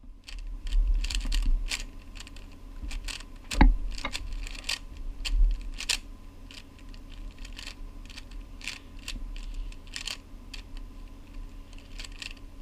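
Plastic YJ Guanlong speed cube being turned by hand, its layers clicking in quick, irregular runs as it is scrambled.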